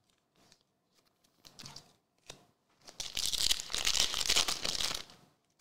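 A foil trading-card pack wrapper being torn open and crinkling, a dense crackle lasting about two seconds that starts about three seconds in, after faint ticks of cards being handled.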